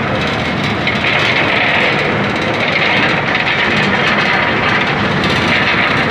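Almond processing machinery running: a loud, steady mechanical noise with a hiss, swelling slightly now and then.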